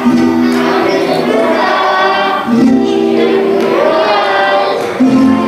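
A group of young children singing a song together in Spanish, holding long notes.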